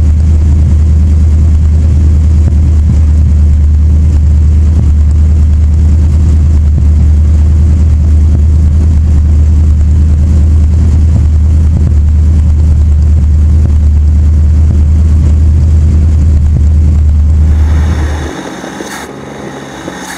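1969 Ford Econoline 200 van's engine idling, heard close to the exhaust at the rear as a loud, steady low rumble that stops suddenly near the end.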